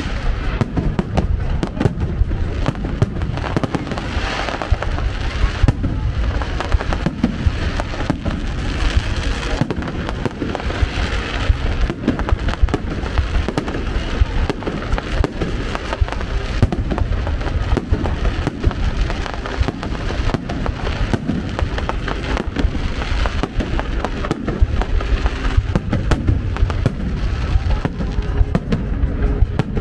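Fireworks display: a dense, unbroken barrage of bangs and crackling.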